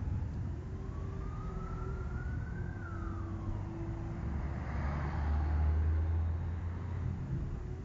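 An emergency-vehicle siren wailing once, rising slowly and then dropping back quickly, over the low rumble of street traffic. The rumble swells about five seconds in.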